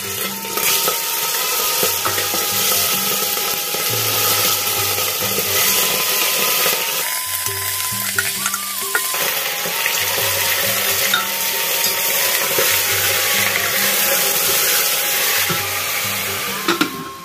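Chopped local chicken sizzling in hot oil in a pressure cooker. The sizzle starts suddenly as the meat goes in and stops abruptly near the end. Background music plays underneath.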